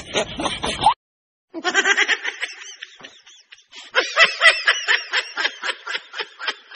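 Laughter in quick, repeated snickers. It cuts off suddenly to silence about a second in, then starts again and gets louder near the middle.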